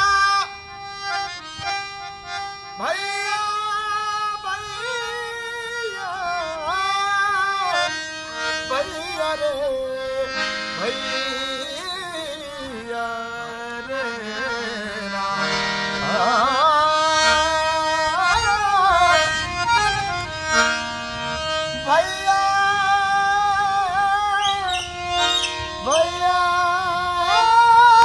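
A man singing a devotional song in full voice, with long held notes that slide up and down, to a harmonium playing along.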